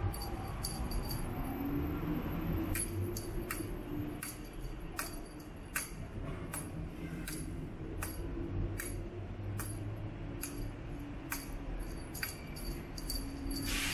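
Bell on a cat teaser toy jingling in short, uneven shakes, about one or two a second, over a low steady background rumble.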